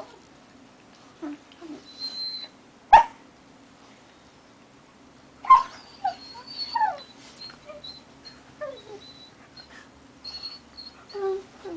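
Two young dogs play-fighting, giving short yips, whines and high squeals. A sharp yelp comes about three seconds in, and a cluster of yelps and whines follows a couple of seconds later.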